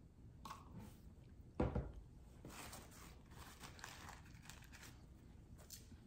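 Handling noises from a plastic shake cup with a domed lid and a plastic spoon: a dull thump about one and a half seconds in, then light crinkling and clicking.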